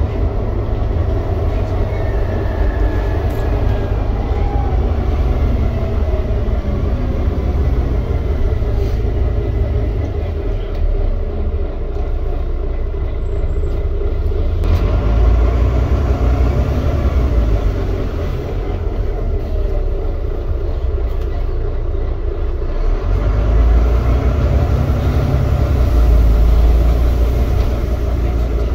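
Volvo B9TL Wright Gemini double-decker bus under way, heard from the upper deck: a steady low rumble of the diesel engine and running gear, with the engine note rising and falling and the rumble swelling louder about halfway and again near the end.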